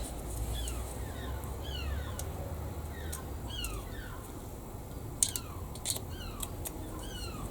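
A bird chirping over and over in the background, each call a short falling note, against a low steady hum. A few sharp clicks come in a cluster about five to seven seconds in.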